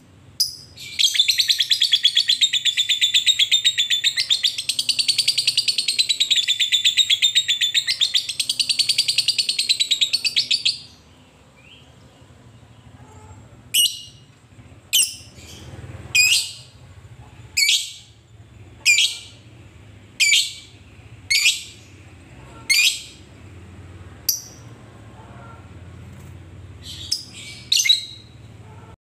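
Fischer's lovebird giving a long, fast rattling chatter (the 'ngekek') for about ten seconds, its pitch wavering, then about ten single sharp chirps roughly a second apart (the 'ngetik').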